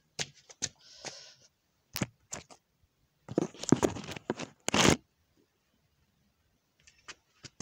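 Scattered clicks and scraping handling noise, with a louder burst of crunching and rustling about three to five seconds in.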